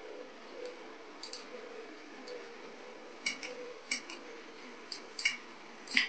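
Light, scattered clicks and taps of small metal parts being handled on a bench mini mill, about half a dozen over a few seconds, over a faint steady hum.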